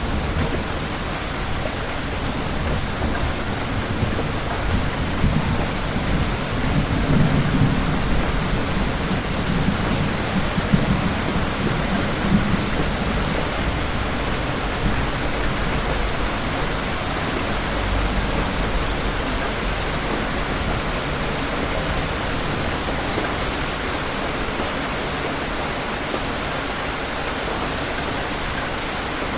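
Steady heavy rain falling, with a low rumble swelling from about six to thirteen seconds in.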